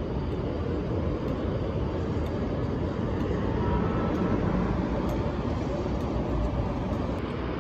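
Steady city street traffic noise, a low even rumble of cars and street activity.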